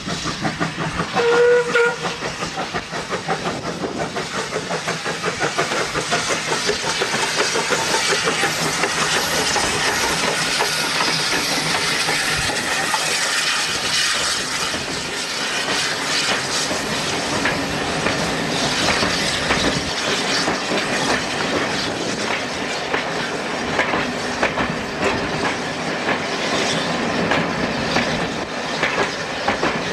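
A small steam saddle-tank locomotive gives a short whistle about a second and a half in, then passes hauling coaches, with steam hissing and a steady clickety-clack of wheels over the rail joints as the coaches roll by.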